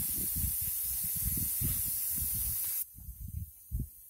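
Air hissing steadily out of a tractor's rear tyre through its valve as the tyre is let down. The hiss cuts off suddenly about three seconds in.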